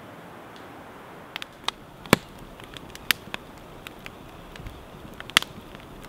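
Wood campfire of charred logs and glowing coals crackling, with irregular sharp pops over a faint steady hiss; the loudest pop comes about two seconds in.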